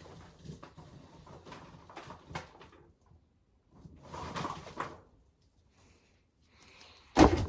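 Corn being handled during hand shelling: light scattered knocks, a rattling clatter about four seconds in, and a sharp knock near the end.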